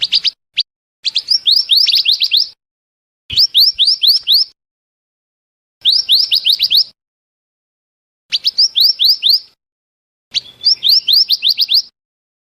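Recorded lure call of a scarlet minivet (mantenan): loud bursts of rapid, high, down-slurred whistled notes, each burst about a second long, repeating every two to three seconds.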